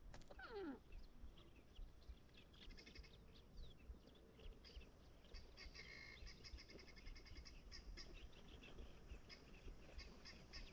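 Near silence outdoors, with faint, quick bird chirps repeating throughout and a short downward-sliding call right at the start.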